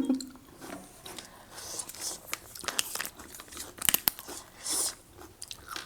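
Close-up eating sounds: chewing and biting with small crunches and scattered clicks, plus a few short hissy bursts.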